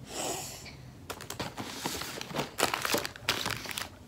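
Snack wrappers and gift packaging crinkling and rustling in irregular bursts as items are pulled out of a gift box.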